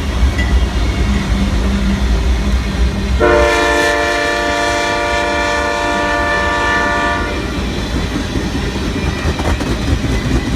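Circus train rolling past with a steady low rumble, its locomotive air horn sounding one long chord for about four seconds, starting about three seconds in.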